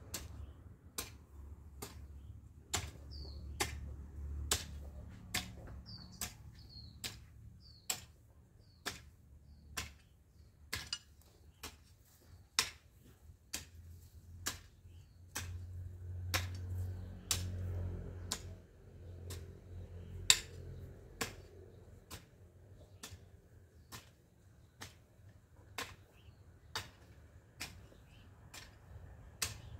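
A hoe striking the soil in a steady rhythm, about one sharp strike a second. A few bird chirps sound in the first ten seconds, and a low rumble swells in the middle.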